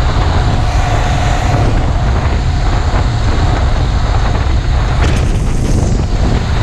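Steady wind buffeting on the microphone mixed with the running of a motorized bicycle's small four-stroke engine, riding at speed during its break-in run.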